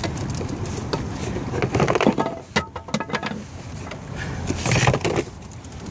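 Aboard a small open fishing boat: irregular knocks and clatter of gear being moved, over a steady rush of wind and choppy water.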